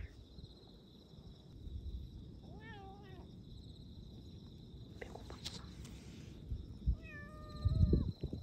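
Black kitten mewing while it eats chicken: a short mew about three seconds in and a longer, drawn-out one near the end.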